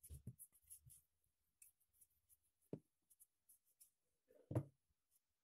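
Rolling pin working pastry dough on a floured wooden board: quiet rubbing and soft knocks, a cluster of them in the first second and a louder knock near the end.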